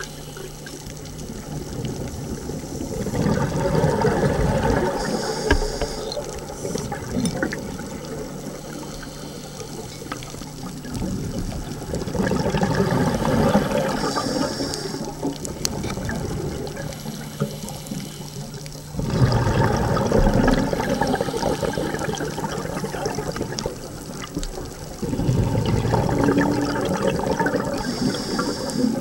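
Scuba diver's breathing heard underwater: four exhalations through the regulator, each a few seconds of rushing, bubbling noise, about every seven seconds, with quieter stretches between.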